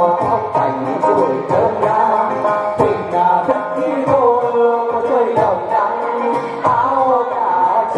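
Vietnamese chầu văn music, with a plucked lute prominent over regular percussion strikes.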